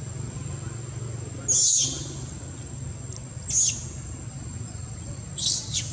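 A baby macaque squealing: three short high-pitched squeals about two seconds apart, the first the loudest, over a steady low hum.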